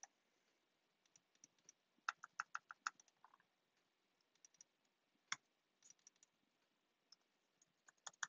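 Faint computer keyboard typing and clicks: a quick run of keystrokes about two seconds in, then scattered single clicks, the sharpest a little after five seconds.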